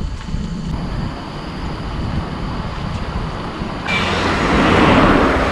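Steady low rumble of a vehicle on the road. About four seconds in, a loud buzzing cicada chorus cuts in suddenly and swells.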